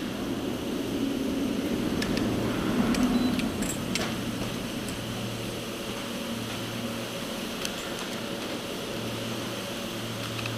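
Gondola lift station machinery running with a steady hum and a low drone that comes and goes, with a few sharp clicks and clanks.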